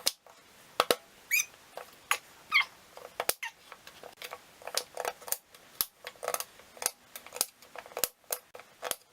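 Sweet potatoes being peeled and chopped with a knife on a board: an irregular run of short knocks and scrapes, a few a second, with two brief squeaks in the first few seconds.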